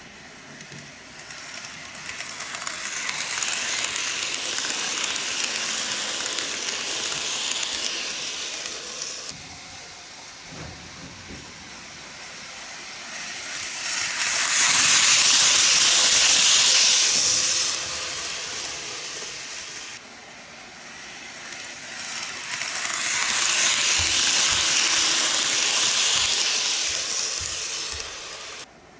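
N-gauge model train (KiHa 81/82 series diesel railcar set) running along model track: a hissing, rolling run of its motor and wheels on the rails, heard three times as it passes. The second pass is the shortest and loudest, matching a faster run.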